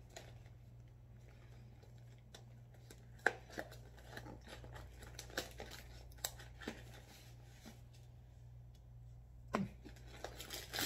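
Cardboard box of the Paqui One Chip Challenge being opened by hand: quiet scattered crinkling, tearing and small clicks of the card and its flap. A sharper snap comes about three seconds in, and a few more clicks come near the end.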